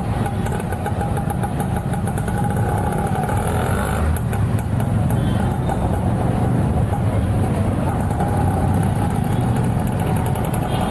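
Steady motor-vehicle engine noise, motorbikes and road traffic running close by.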